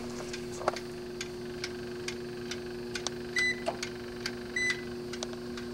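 Schumacher SE-2158 battery charger switched on, its timer ticking about twice a second over a steady electrical hum. Short high beeps come a little over a second apart, three of them from about halfway through.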